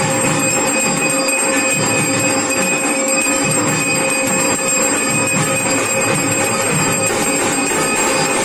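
Brass hand bell (ghanta) rung without pause during an arati, a steady ringing at a few fixed pitches over a dense, busy clatter of other sound.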